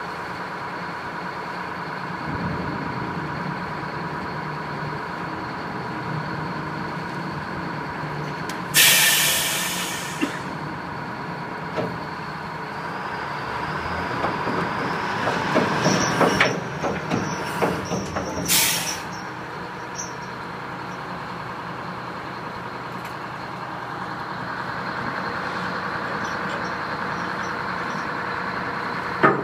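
Tugboat engines and deck machinery running with a steady hum. A loud hiss comes about nine seconds in and a shorter one about eighteen seconds in, with a run of metal clanks and knocks shortly before the second.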